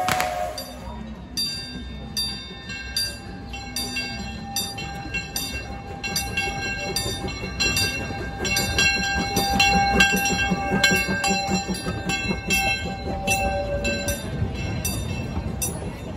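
Steam locomotive Judy K approaching. A whistle blast cuts off right at the start, then its bell rings with about two strokes a second over the low chuffing of its exhaust, which grows louder as it draws near.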